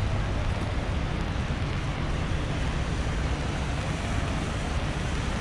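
Steady busy city-street noise: a low traffic rumble under an even hiss, with no single event standing out.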